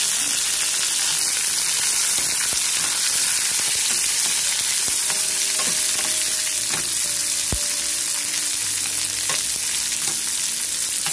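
Chopped onion, garlic and curry leaves sizzling in hot oil with mustard seeds and dals in a stainless steel pan: the tempering (tadka) for sambar. A steady sizzle, with a spoon stirring and knocking against the pan a few times in the second half.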